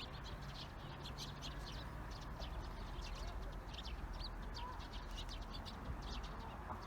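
Small birds chirping in a dense chorus of short, high calls, over a steady low rumble.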